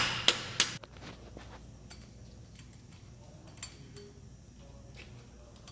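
Small hammer tapping a driver three times in quick succession, seating a bearing in the Honda Civic's crankshaft end; the blows sound solid now that it is flush. After that, a few faint metal clinks.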